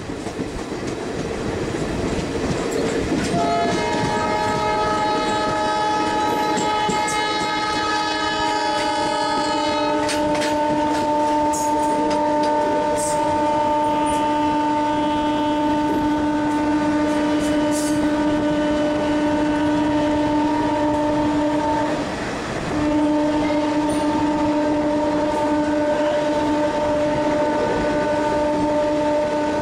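Indian passenger train's horn held in one long steady blast, breaking off briefly about 22 seconds in and sounding again, over the rumble and clatter of the coaches rolling through a station.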